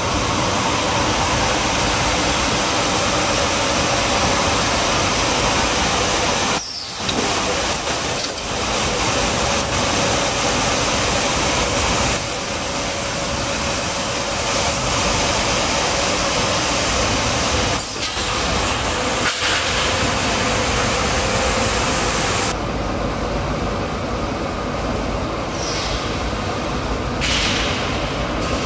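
Solar panel dismantling line running: steady, loud machinery noise with a faint hum underneath, briefly dropping away about seven seconds in and again near eighteen seconds.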